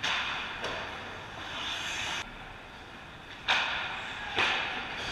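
Hockey skate blades scraping on the ice: several sharp, hissing scrapes, the loudest about three and a half and four and a half seconds in, over a steady rink hiss.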